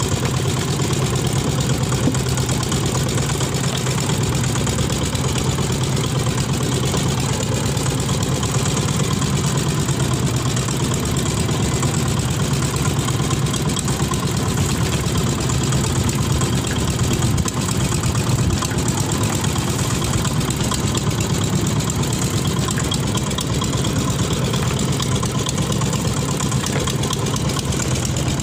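Small inboard engine of a wooden fishing boat idling steadily, a constant low drone with no change in speed.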